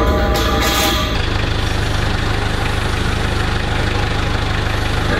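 Caterpillar forklift truck's engine running steadily as it drives, with a brief higher-pitched noise in the first second.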